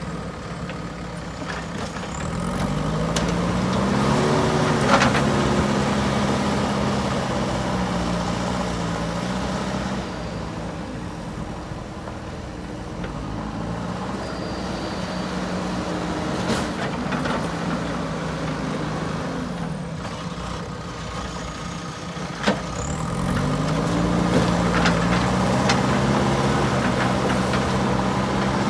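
Backhoe loader's diesel engine running, revving up twice to a higher steady pitch as it takes hydraulic load, about three seconds in and again about twenty-two seconds in. Occasional sharp metallic knocks and clanks sound over it.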